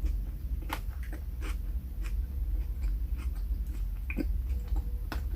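Close-miked chewing of a sub sandwich: scattered wet mouth clicks and smacks, over a steady low hum.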